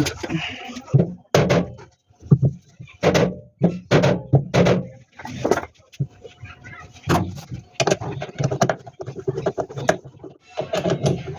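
Irregular knocks, clicks and clatter of tools and metal parts being handled while a top-load washing machine is taken apart.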